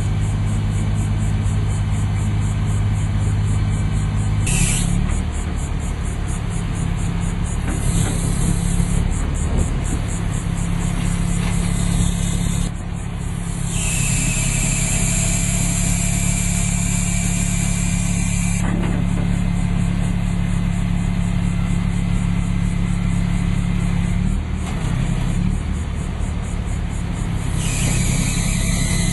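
Engine of a truck-mounted Big John 100D tree spade running steadily while its hydraulic blades work around a tree trunk, its note shifting several times, with a hiss that comes in around the middle and again near the end.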